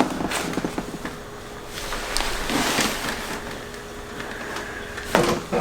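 Soft shifting and rustling on a treatment table, then two sharp cracks close together near the end: joints cavitating under a chiropractic adjustment.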